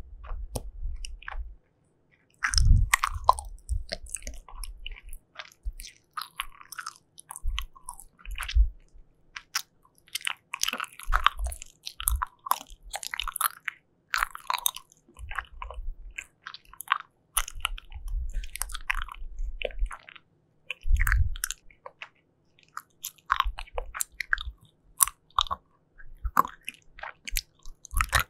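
Close-miked chewing of soft, chewy jelly: irregular wet squishes and clicks of the mouth working the jelly, with a few brief pauses.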